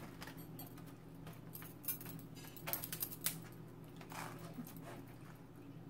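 Quiet eating at the table: a few scattered clicks and crackles of crab-leg shell being handled and broken and a fork against foam and foil takeout containers, over a steady low hum.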